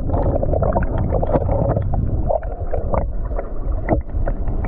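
Stream water flowing and splashing, with a steady low rumble and many small splashes and ticks on top.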